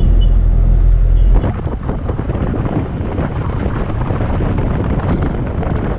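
Noise of a car on the move, wind buffeting the microphone over a heavy low rumble. The rumble cuts off abruptly about a second and a half in, giving way to a rougher, crackling noise.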